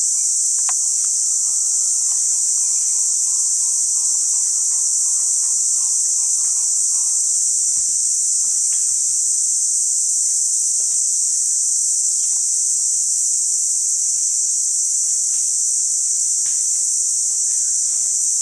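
A chorus of insects keeps up a steady, high-pitched drone, with a few faint ticks scattered through it.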